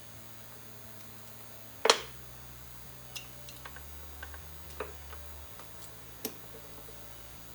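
Sharp metallic clicks and taps of hand tools and small parts on a carburetor being bolted back together: one louder knock about two seconds in, then a few lighter ticks.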